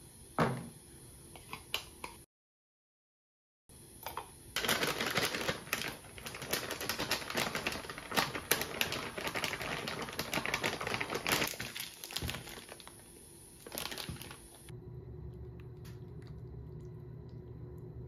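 Close-up food-preparation sounds: corn and shredded cheese being tipped into a plastic container and mixed, a dense clatter and rustle of many small clicks. About fifteen seconds in, the clatter gives way to a steady low hum.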